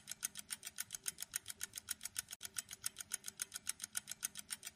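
Countdown-timer ticking sound effect: quick, even ticks, about five a second.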